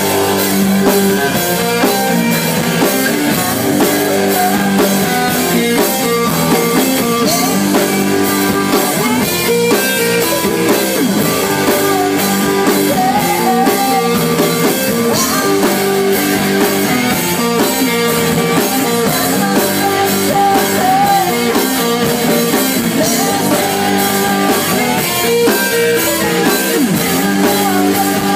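Live rock band playing loudly: a man singing over electric guitar and a drum kit keeping a steady beat.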